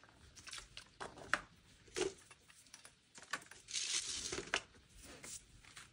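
Plastic bottles set down one after another into a clear plastic storage basket: several light knocks and clatters of plastic on plastic, with a short rustle about four seconds in.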